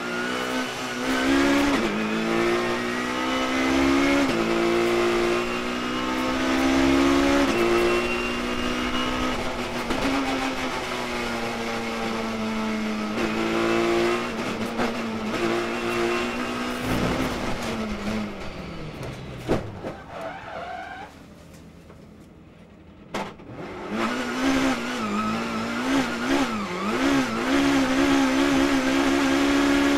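BMW touring race car's engine heard from inside the cockpit, climbing in pitch and dropping back with each gear change. About two-thirds of the way through it winds down to a short lull, then revs up and down unevenly before running steadily at high revs.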